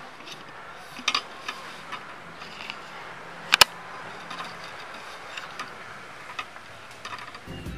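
Steady background hiss with scattered small clicks and taps; a sharper double click comes about three and a half seconds in. Music starts right at the end.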